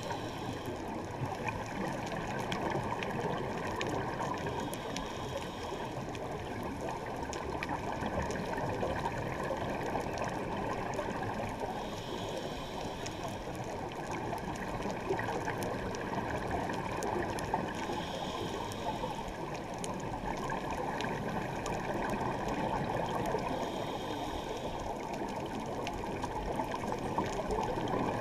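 Muffled underwater noise picked up by a GoPro in its waterproof housing while scuba diving, with a scuba diver's regulator breathing: a short hiss about every six seconds over a steady dull rush.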